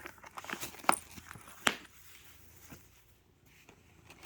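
Small objects clicking and rattling as cat toys and packaging are handled: several sharp taps in the first two seconds, then only faint sounds.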